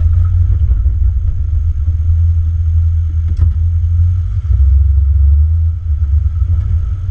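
Jeep's engine and drivetrain running at low speed over a gravel trail, heard from inside the cab as a steady deep rumble, with a single sharp knock about three and a half seconds in.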